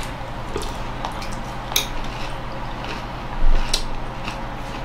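Scattered light clicks and clinks of tableware being handled on a table, a few sharp ones standing out, over a steady low hum.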